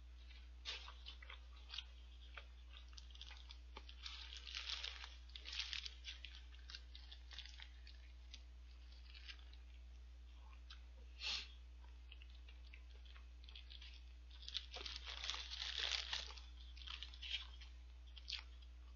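Close-up chewing of a fried shrimp-patty burger (Lotteria shrimp burger): soft, crunchy mouth sounds and crackles, coming in two busier spells of chewing about four seconds in and again about fifteen seconds in. A steady low hum runs underneath.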